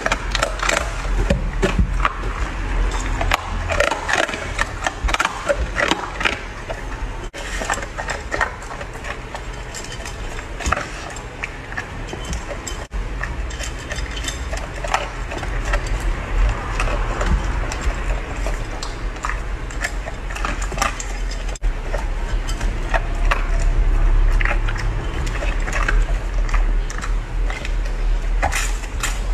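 Golden retriever eating dry kibble from a bowl: rapid, irregular crunching and clicking, over a steady low hum.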